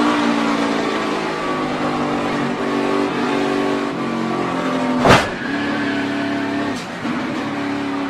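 NASCAR stock car's V8 engine running at racing speed, heard from inside the cockpit. About five seconds in there is a single sharp bang of contact as the pack wrecks, then a lighter knock a moment later.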